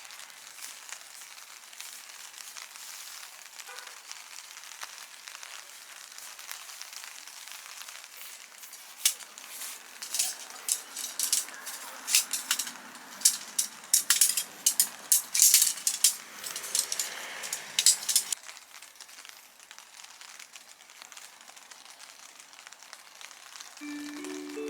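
Rain falling on a camping tarp: a steady patter, with a stretch of loud, sharp drop hits in the middle that cuts off suddenly. Near the end a chime of rising notes starts, the lead-in to a loudspeaker announcement.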